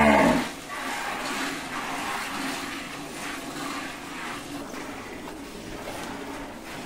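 Milk squirting by hand into a metal milk bucket: a steady run of hissing squirts as the teats are pulled in turn. At the very start a low drawn-out sound falls away and stops.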